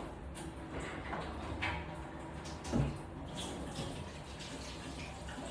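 Water running and splashing during washing-machine cleaning, with scattered light clicks and one louder knock about three seconds in.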